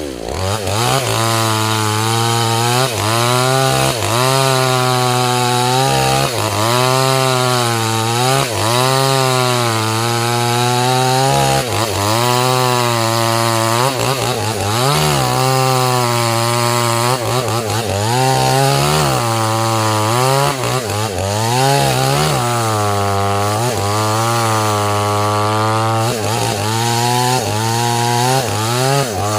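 Two-stroke chainsaw cutting into a waru tree, its engine pitch repeatedly sagging under load and climbing back as the chain bites and frees. Right at the end the throttle is released and the engine falls away toward idle.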